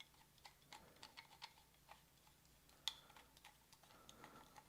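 Near silence with scattered faint clicks and light knocks of plastic toy tool pieces being handled, the sharpest about three seconds in.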